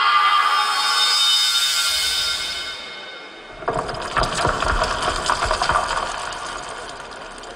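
Show soundtrack: sustained choral-synth music fading out, then about three and a half seconds in a dense crackling, cracking sound effect with a low rumble, matching a projected crack splitting the facade.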